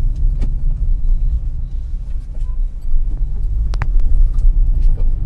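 Low, steady rumble of a Maruti Suzuki Ritz driving on the road, engine and road noise heard inside the cabin. A few sharp clicks ride over it, the loudest a little under four seconds in.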